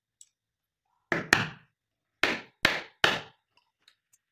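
Metal hand tool knocking on a wooden workbench: a quick double knock, then three more knocks about half a second apart.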